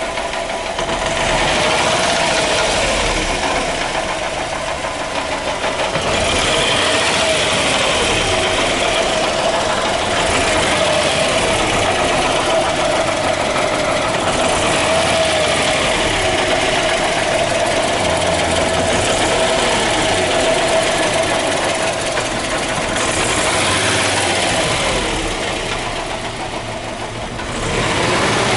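Subaru Legacy BH5's flat-four running, with a steady whine from underneath the car that swells and fades with the running noise. It is an abnormal noise that the owner suspects comes from the shaft.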